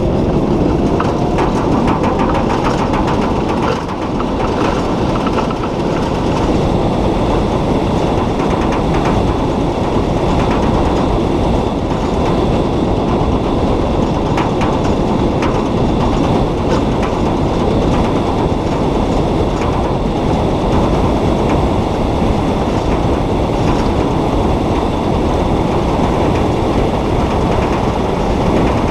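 Solar race car driving at speed, heard from inside its cockpit: a steady, loud rumble of tyres on the track with light rattling from the body. A faint whine rises in pitch over the first few seconds.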